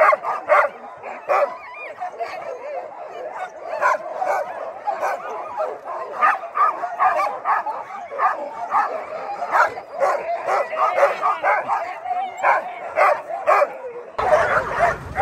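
A team of harnessed sled dogs barking and yipping all at once in a constant, overlapping din, typical of sled dogs hooked up and waiting to run. Near the end a low rumbling noise comes in under the barking.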